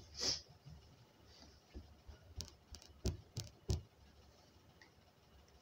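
Faint room tone with a short hiss near the start, then a quick cluster of about five soft knocks and clicks a little past halfway.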